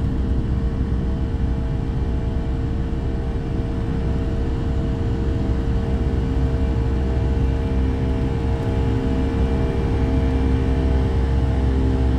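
Boeing 757-200's twin jet engines at takeoff thrust, heard inside the cabin during liftoff and initial climb: a loud, steady low rumble with a steady hum over it.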